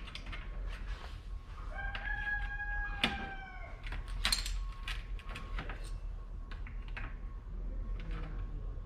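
A rooster crows once, a single drawn-out call of about two seconds, over scattered light clicks and taps of hand tools and parts being handled.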